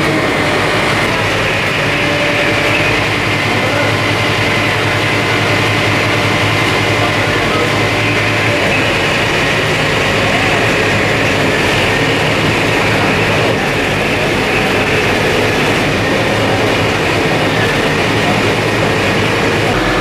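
Fire truck engine running steadily to power the aerial ladder: a loud, constant mechanical drone with a faint steady whine over it.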